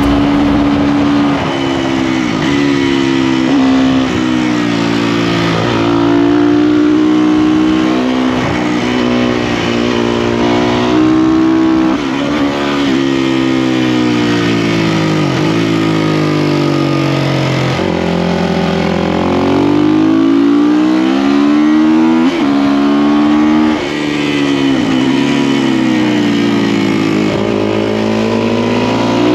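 Motorcycle engine running under way, its pitch climbing and then dropping sharply again and again as it accelerates, shifts gears and eases off.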